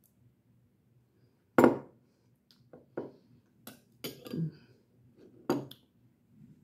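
Metal spoon clinking against a bowl of ice cream, a few sharp separate clinks, the loudest about a second and a half in.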